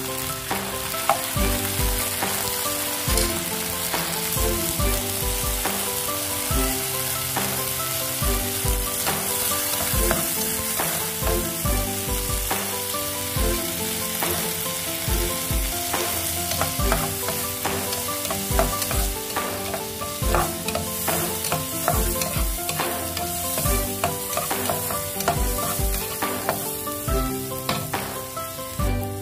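Cut baby French beans sizzling steadily in hot oil in a nonstick frying pan, turned now and then with a slotted spatula.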